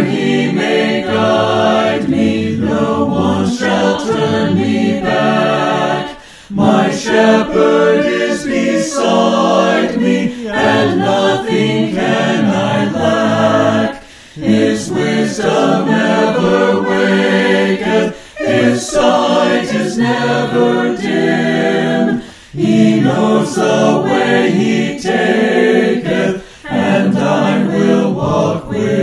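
Choir singing, in long phrases broken by short pauses every few seconds.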